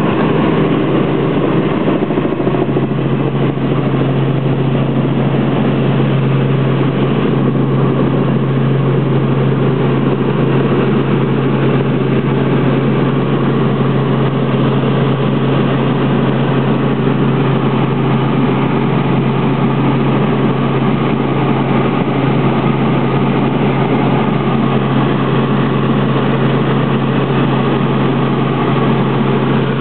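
Helicopter engine and rotor noise heard from inside the cabin in flight: a loud, steady drone with a strong low hum that does not change.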